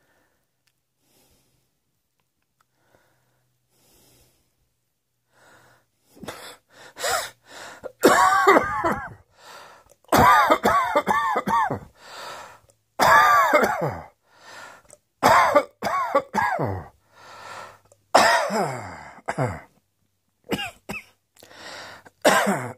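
A person coughing in repeated hard fits: after a few quiet seconds, runs of loud coughs follow one another every couple of seconds, many with a voiced tail that slides down in pitch.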